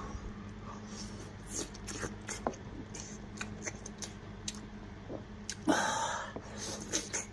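Close-up eating sounds: fingers tearing meat off a cooked sheep's head, with scattered small clicks, smacks and chewing. A louder half-second mouth noise comes about six seconds in, over a faint low steady hum.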